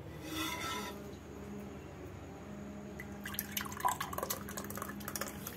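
Thick falooda milk being poured from a pot into a glass, with a run of wet drips and plops starting about three seconds in, over a faint steady hum.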